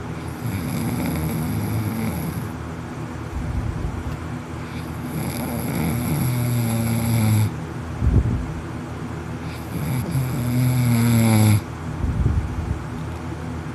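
A man snoring loudly in his sleep, mouth open: three long snores, roughly one every four to five seconds, each a low drone with a hissing breath over it. There is a short loud burst between the second and third.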